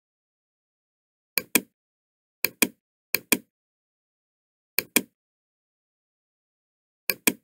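Computer mouse button clicks: five clicks with silence between, each heard as a quick press-and-release pair.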